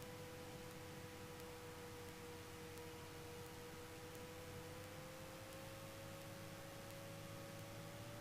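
Faint cockpit sound of a Cessna 172 on final approach: a low muffled engine drone under a thin, steady whine that rises slightly in pitch about five seconds in.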